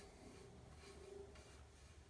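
Near silence: room tone, with a few faint soft sounds.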